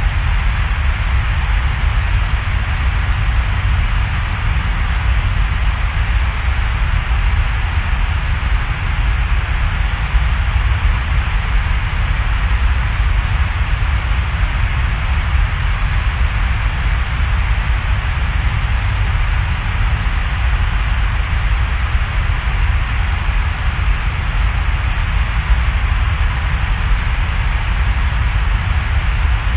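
Loud, steady hiss-like noise with a deep rumble beneath it, unchanging throughout, with no music or voices.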